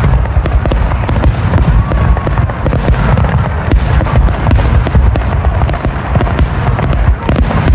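Aerial fireworks shells bursting in a rapid barrage. Deep booms and sharp cracks overlap one another without a break.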